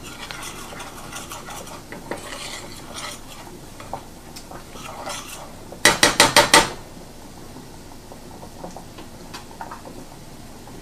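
A wire whisk stirring flour into onions in a stainless steel skillet, scraping and clinking against the pan, as the flour cooks into a roux for gravy. About six seconds in, the whisk is rapped about six times in quick succession against the pan's rim, the loudest sound; a faint sizzle runs underneath.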